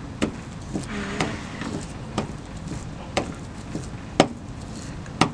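Hand ink roller rolling oil-based ink back and forth across a damp Pronto lithography plate, with a sharp click about once a second at each stroke.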